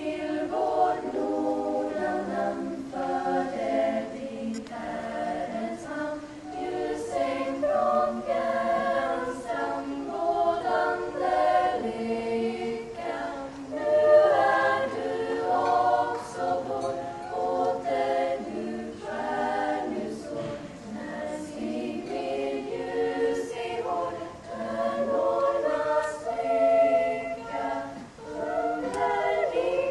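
A Lucia choir singing, the voices coming in suddenly right at the start.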